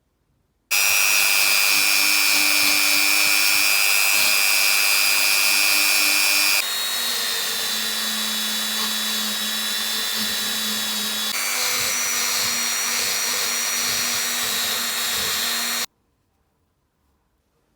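Bosch GDS 250-LI cordless impact wrench motor running free with a steady whine. It switches on about a second in, and its tone shifts twice, dropping a little in level at the first change. It cuts off abruptly near the end.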